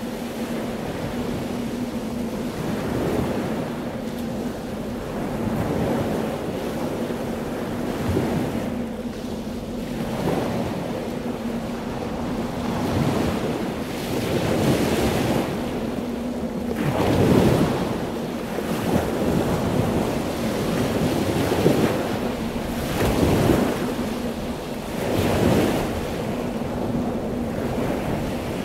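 Wind buffeting the microphone in gusts, swelling and dying away every two or three seconds, with a faint steady low hum underneath.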